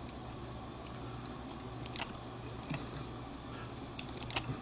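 Steady low hum with a few faint, short clicks: one about two seconds in and a small cluster near the end.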